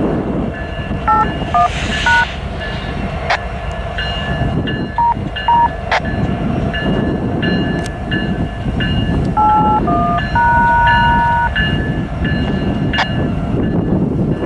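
Low steady rumble of a six-unit lashup of BNSF diesel locomotives, mostly EMD SD70ACe, standing with a coal train. Over it a railroad radio scanner sends short two-tone touch-tone (DTMF) beeps in quick clusters, the last held about a second, with a few sharp clicks.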